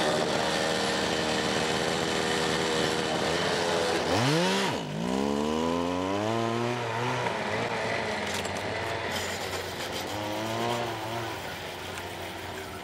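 Go-kart's small gasoline engine running hard as the kart pulls away; its pitch dips sharply about four seconds in, climbs back, then wavers while the sound slowly fades.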